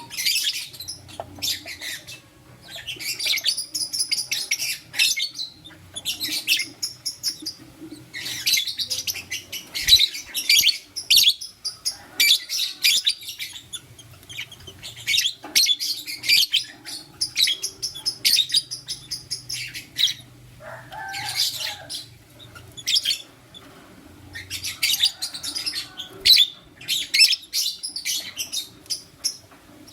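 Lutino lovebird and its mate chirping: bursts of rapid, high-pitched twittering every few seconds, with short pauses between, over a faint low hum.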